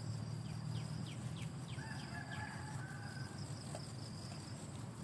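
Outdoor ambience: a steady high-pitched insect drone, a quick run of short falling bird chirps, and a rooster crowing in the middle.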